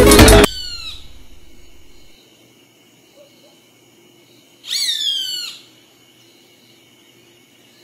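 Latin salsa music cuts off about half a second in and its tail fades. Past the middle comes a short burst of quick, falling whistled chirps, a bird-like call lasting under a second.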